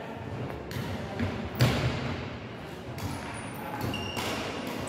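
Badminton play in a sports hall: rackets hitting the shuttlecock in a series of sharp knocks, the loudest about one and a half seconds in.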